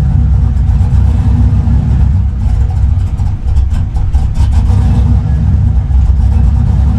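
Truck engine idling, steady and loud, with a deep exhaust note.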